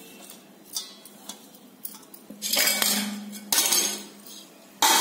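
Stainless steel dishes clinking and scraping: a few light clinks, then a loud scraping rasp about halfway through, and another starting near the end, as a steel plate is tipped and knocked against a steel mixing bowl holding curry leaves and lentil batter.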